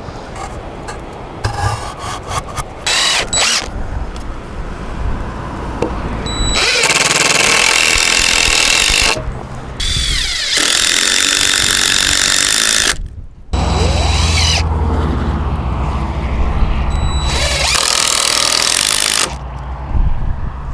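A handheld power tool working the wooden frame in four loud bursts of one to three seconds each, with short pauses between them, after a few light knocks.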